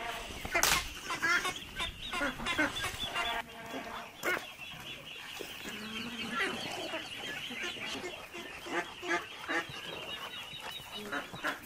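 Farmyard chickens clucking, with many short calls overlapping and scattered throughout.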